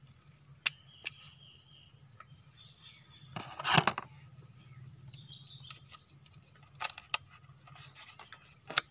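Light metallic clicks and knocks as an excavator boom cylinder piston, fitted with new seals, is handled and turned by hand, with one louder scrape a little over three seconds in.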